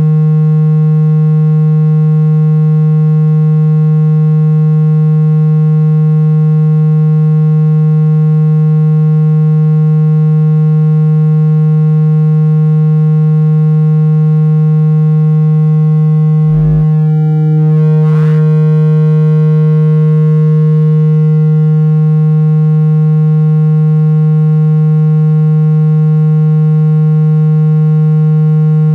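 Speaker water- and dust-ejection tone: a loud, steady, low buzzing synthesized tone held without change, meant to shake water and dust out of a phone speaker. Two short clicks break it about seventeen and eighteen seconds in.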